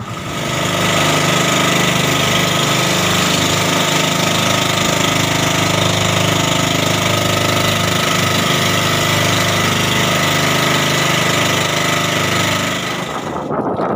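Outrigger fishing boat's small inboard engine running steadily under way, loud, with a rapid even beat.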